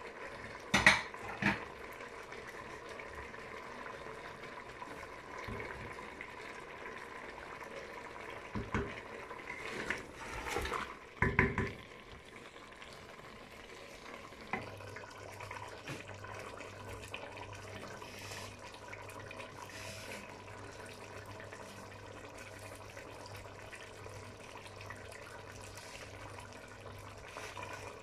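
A wooden spoon stirs chicken and spices in a pressure cooker pot, knocking sharply against the metal several times in the first dozen seconds, over a soft steady sizzle of the food cooking. A low steady hum comes in about halfway through.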